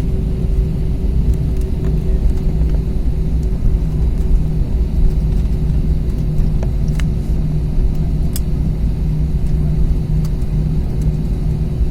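Steady low rumble inside an airliner's cabin, with a constant engine hum over it, as the plane rolls along the ground after landing. A few faint ticks sound here and there.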